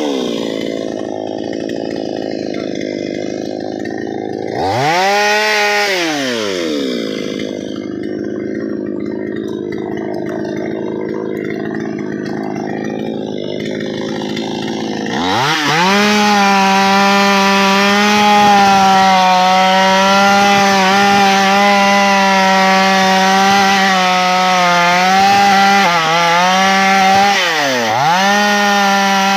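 Two-stroke chainsaw engine running: it is revved up and let fall back once early on, runs at lower revs for several seconds, then climbs to full throttle and holds high and steady, with a brief sag and a deep dip and recovery near the end.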